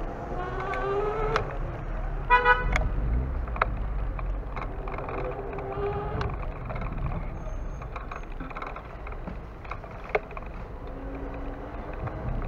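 Street traffic ambience on a cobbled town street, with a vehicle engine rising in pitch and a short car horn toot about two seconds in.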